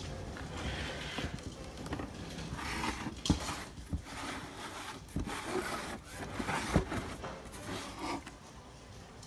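Handling noises: irregular rubbing and scraping with a few sharp knocks, as of objects being moved and turned by hand. No motor is running.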